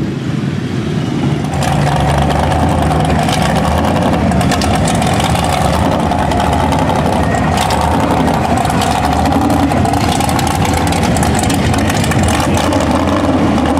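Heavy mud-truck engine running steadily with a rough crackle in it; the sound changes about a second and a half in.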